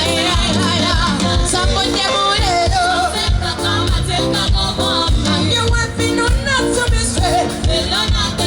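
Live concert music with a steady bass beat and a singing voice, in a Latin, salsa-like style.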